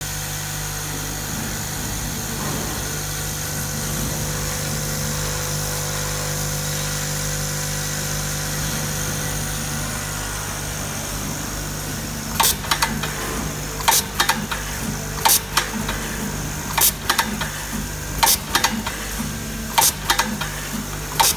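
Automatic nylon cable tie machine running: its vibratory bowl feeder hums steadily. From about twelve seconds in, the tying head cycles about every one and a half seconds, each cycle a short burst of sharp clicks as a tie is fed, tightened and cut around a bundle of plastic tubes, seven cycles in all.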